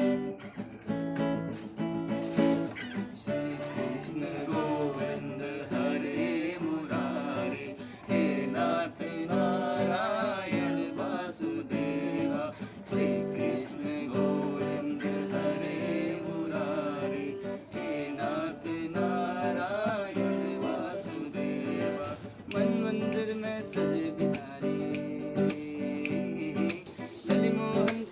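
Acoustic guitar strummed in steady chords, accompanying a male voice singing a Hindi devotional song (bhajan).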